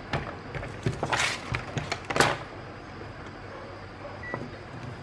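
Clicks and rustles of test leads and an alligator clip being handled on a workbench, with two louder scrapes about one and two seconds in. Near the end, a short high beep from a Victor VC97 digital multimeter as it switches on.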